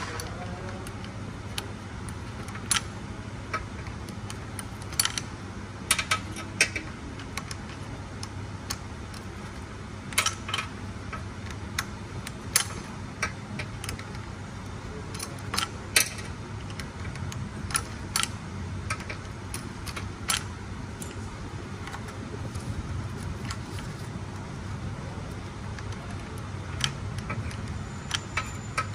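Irregular metallic clicks and clinks, scattered one or a few at a time, of hand tools working on and handling metal screws and fasteners, over a steady low hum.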